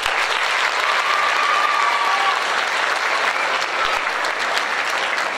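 Large audience applauding, a dense, steady clapping.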